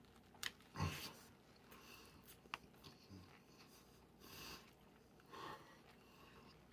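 Near silence broken by faint sniffs and breaths through the nose while a mouthful of chicken wrap is chewed with the mouth closed, with a few small clicks and a soft thump about a second in.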